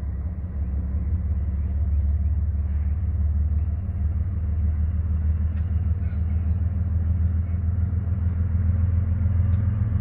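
Diesel locomotive engine running with a steady low rumble as the train approaches slowly.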